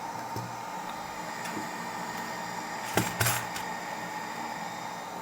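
A few sharp clicks and knocks of small hard objects handled on a workbench, bunched together about three seconds in, over a steady hiss.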